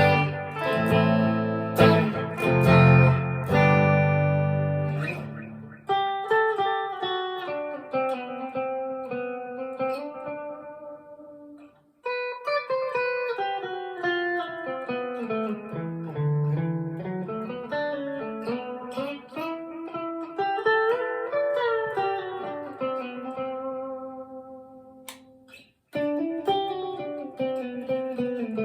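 PRS SE Custom 24 electric guitar played clean through a Line 6 Catalyst 60 amp: a few seconds of strummed chords, then picked single-note melodic lines, with short pauses about twelve and twenty-six seconds in.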